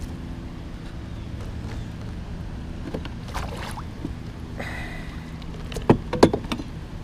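A landing net and a largemouth bass being handled at the side of a kayak: scattered rustling and dripping as the fish is lifted out of the net, then two sharp knocks about six seconds in, the loudest sounds, as the net frame is set down against the kayak. A steady low hum runs underneath and stops just before the knocks.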